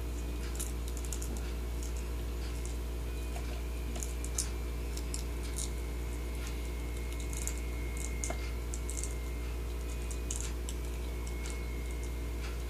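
Small, irregular clicks and crackles of a crab picking at and eating chips with its claws, over a steady low hum.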